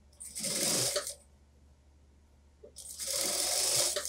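Industrial sewing machine running in two short bursts of about a second each, stitching a suit jacket's sleeve into the armhole.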